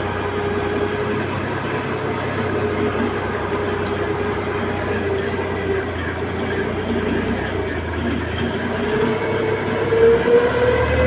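Heavy machine's engine running steadily, its pitch rising in the last few seconds as it is revved.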